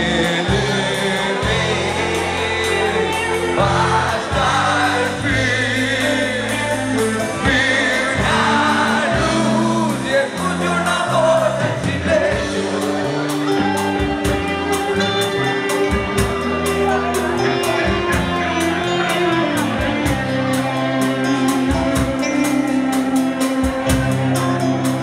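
Live rock band playing, with electric guitars, electric bass and drums, and a voice singing over them.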